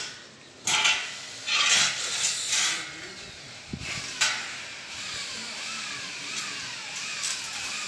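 Arc welding hissing and crackling steadily. Louder rushes of noise come in the first three seconds and a short knock just after four seconds, and from about halfway a faint falling chirp repeats about twice a second over the hiss.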